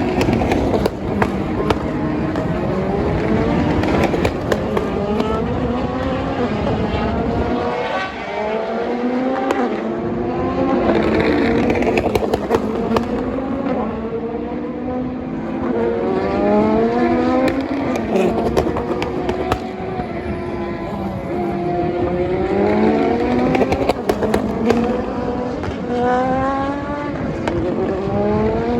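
Several endurance race cars running at full speed, their engines climbing in pitch again and again as they accelerate through upshifts, overlapping one another, with frequent sharp exhaust pops.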